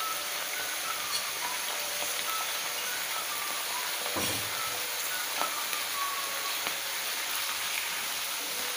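Mixed vegetables frying in oil in a kadai, with a steady sizzle, and a dull knock about four seconds in as a wooden spatula starts stirring them.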